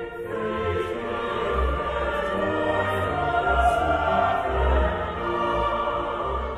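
Choir singing classical sacred music with a small orchestra of strings and woodwinds.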